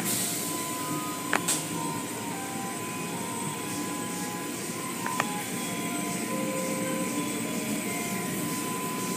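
Automatic car wash heard from inside the car: water spray and spinning cloth brushes beating against the glass and body in a steady rush of noise, with two sharp knocks, one about a second and a half in and one about five seconds in.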